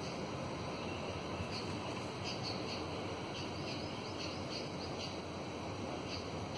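Small birds chirping in short, high, irregular calls, sometimes several in quick succession, over a steady background noise.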